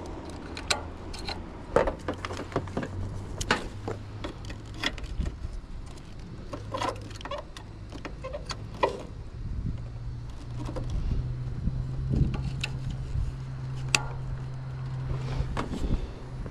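Scattered clicks and light knocks of a jumper lead's clips and hand tools being handled on the car, over a steady low hum that steps up in pitch about ten seconds in.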